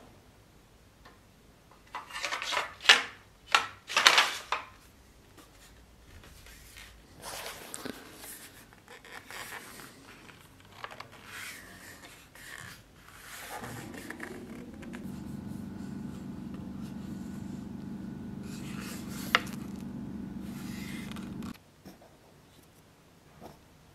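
Sword and scabbard being handled: a few loud rubbing, scraping strokes about two to four seconds in, then softer scrapes. From about fourteen seconds a steady low hum runs, with one sharp click, and cuts off suddenly near the end.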